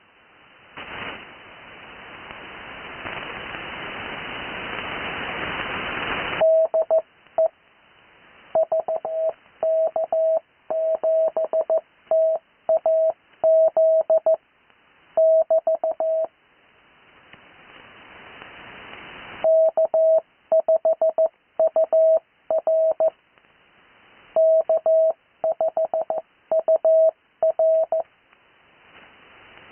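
Morse code (CW) call signs received over an amateur radio receiver: a single steady tone keyed on and off in dots and dashes. Two runs of code are separated by a few seconds of radio hiss that swells as it goes, and the first few seconds are hiss alone.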